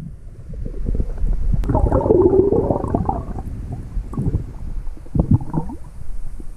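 Underwater sound picked up by a GoPro in its waterproof housing: a muffled low rumble of moving water, with a louder churning stretch about two seconds in and two brief ones later.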